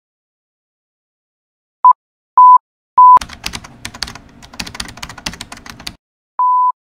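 Three short electronic beeps at one steady pitch, then about three seconds of rapid computer-keyboard typing clicks, then one more, slightly longer beep.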